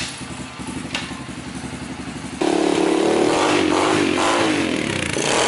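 Apollo pit bike's small four-stroke engine idling with a fast, even beat, then revved hard about two and a half seconds in, its pitch rising and falling through repeated blips of the throttle.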